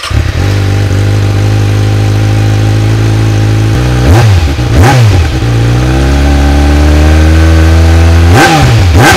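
Vehicle engine idling loudly and steadily, blipped twice in quick revs about four seconds in and twice more near the end.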